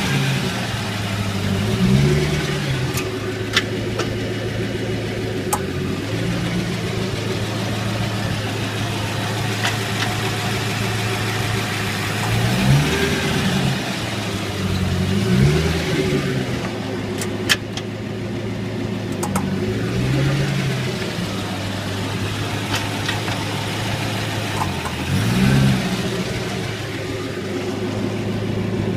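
Corvette C5 Z06's LS6 V8 running at low speed, rising briefly in pitch several times. Sharp single clicks come from the driveline every few seconds, the clicking the owner traced to a dry rear axle nut and spline.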